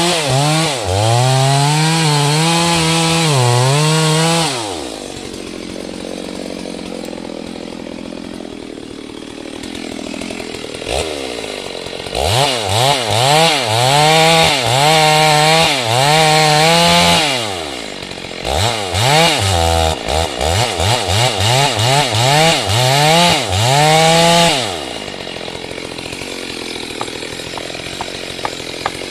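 Chainsaw cutting wood at high speed, its pitch wavering up and down under load. It drops to idle about four seconds in, revs up and cuts again, gives a string of quick throttle blips about once a second, then settles back to idle near the end.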